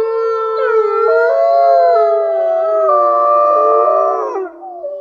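Siberian husky howling: long, drawn-out howls holding steady pitches, with a couple of sudden jumps in pitch, trailing off near the end.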